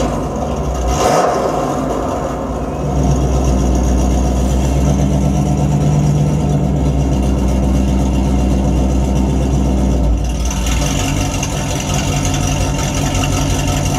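A recorded muscle-car engine sound played back through the Tesla Model Y's Boombox feature, running steadily. It gets louder about three seconds in and eases off after about ten seconds.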